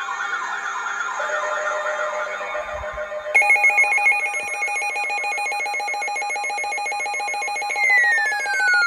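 Electronic siren and alarm tones. A quickly warbling tone gives way about three seconds in to a fast, steady pulsing alarm of several tones at once. Near the end, one tone slides down in pitch.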